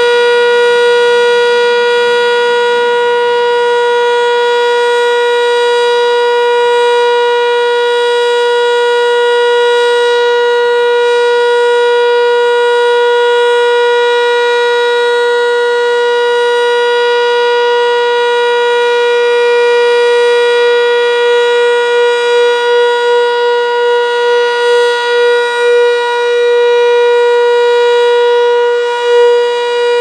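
Sentry 7V8-B outdoor warning siren sounding the steady alert signal: one continuous tone held at a constant pitch. Its loudness flutters briefly in the last third.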